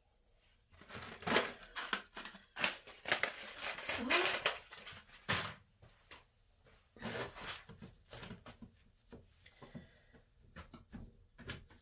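Hands pushing bean seeds into potting compost in small plastic pots: bursts of rustling and scraping of compost against plastic, with a few light clicks as the pots are handled near the end.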